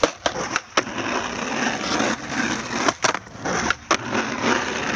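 Skateboard wheels rolling over asphalt with a steady rushing sound, broken by several sharp clacks of the board hitting the ground.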